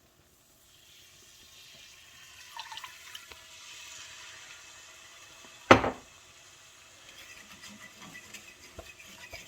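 Whole milk poured into a hot bacon-grease and flour roux in a cast iron skillet, hissing and sizzling as it goes in and building from about a second in. A single sharp knock comes about halfway through, followed by lighter scraping and ticking.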